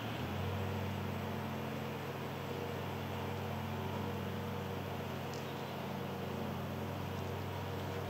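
Steady low mechanical drone, like a distant motor running, holding several even tones, with one faint tick about five seconds in.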